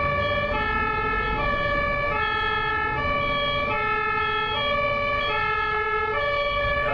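German ambulance's two-tone siren, alternating steadily between a high and a low note, each held about half a second.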